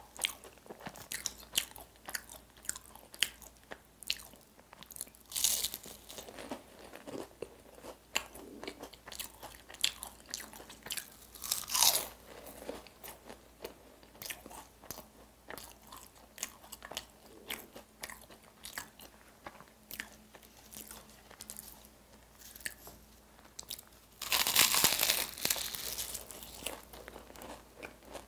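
Close-miked eating of flaky egg tarts: biting and chewing with many fine pastry crackles and wet mouth clicks. There are louder crunchy bursts now and then, and the loudest, longest one comes near the end.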